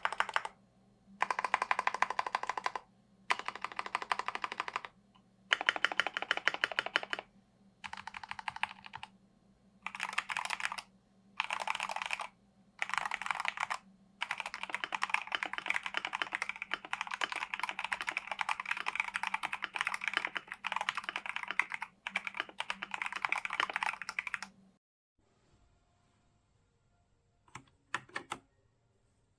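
Typing on a Redragon K689 mechanical keyboard with linear switches: fast runs of keystrokes in short bursts with brief pauses, then a longer unbroken run that stops about 24 seconds in. A few single key clicks follow near the end.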